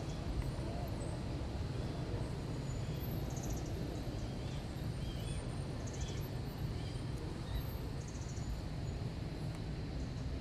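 Outdoor ambience: a steady low rumble with a few faint bird chirps, and a short high buzz that comes back every two seconds or so.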